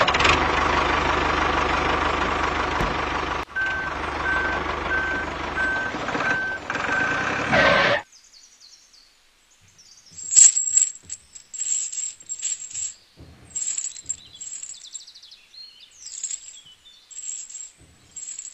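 A heavy vehicle's engine running, with evenly spaced reversing beeps starting about three and a half seconds in; it all cuts off suddenly about eight seconds in. After that, a small metal chain clinks and jingles in short, scattered clinks as it is handled.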